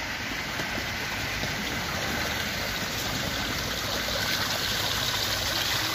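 Water falling steadily from the stone ledge of an artificial rock waterfall fountain into the pool below, a constant splashing.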